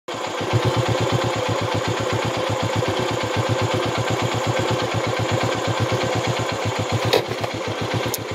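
Honda CB 150F's single-cylinder four-stroke engine running steadily as the motorcycle is ridden over a rocky dirt track, heard as an even, rapid pulse. A couple of sharp clicks come near the end.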